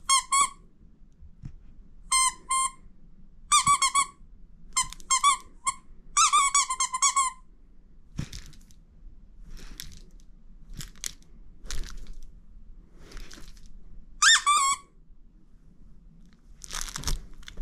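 Squeaky plush dog toy squeaking in quick runs of short, high squeaks, mostly in the first half and once more later. Softer crunching sounds come in between the squeaks.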